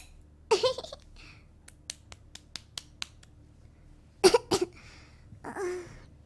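A woman hiccuping with small voiced squeaks: one about half a second in, then two in quick succession about four seconds in, followed by a breathy vocal sound. Between them comes a quick run of about ten light clicks.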